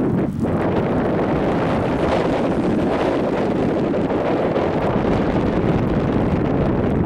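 Strong blizzard wind buffeting the microphone, a steady, loud, low rumbling rush.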